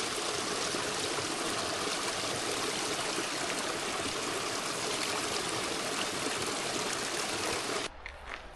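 Creek water rushing steadily. It cuts off abruptly near the end, leaving a quieter background with a few light clicks.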